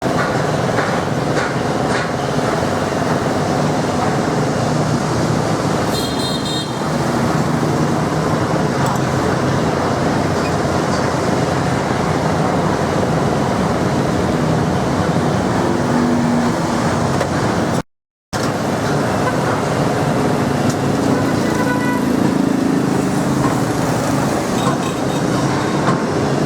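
Street traffic noise: motor vehicles running and passing steadily, with a short horn toot about six seconds in and another fainter one later.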